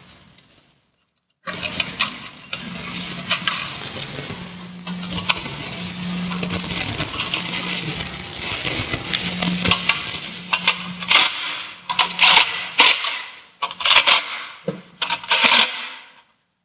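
Ratchet running nuts down onto the studs of a hybrid battery's metal cover: a continuous metallic clatter for about nine seconds, then several short separate bursts near the end.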